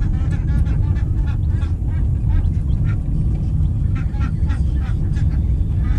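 Domestic ducks quacking repeatedly in short, irregular calls over the steady low rumble of the vehicle carrying them up a dirt road, heard from inside the vehicle.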